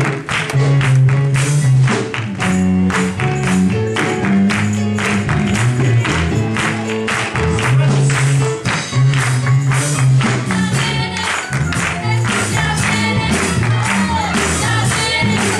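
Live gospel music: a church choir singing over a band, with a stepping bass line and a fast, steady percussion beat.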